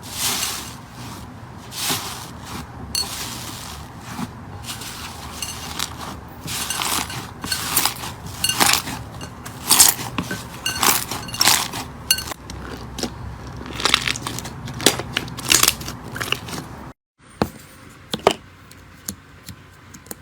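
Slime being squeezed and worked by hand, with irregular crackles and sharp pops. Near the end it stops for a moment, and a few more pops follow.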